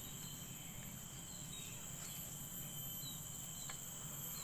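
Steady, high-pitched insect chirring, several thin pitches held at once without a break, with a few faint short chirps over it.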